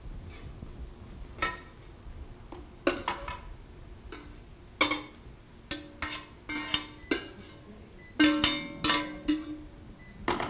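Metal tongs clinking and scraping against a stainless steel sauté pan and a ceramic platter as sauced zucchini noodles are served out. There are about a dozen sharp knocks, several leaving a brief ringing tone from the pan, with a quick cluster of them about eight to nine seconds in.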